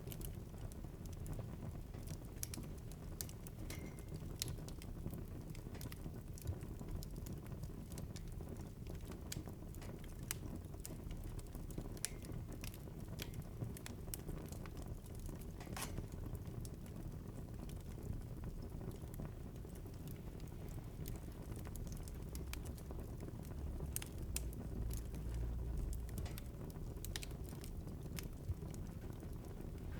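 Wood fire crackling in a fireplace: irregular sharp pops and snaps over a low, steady rush of the flames, which swells briefly near the end.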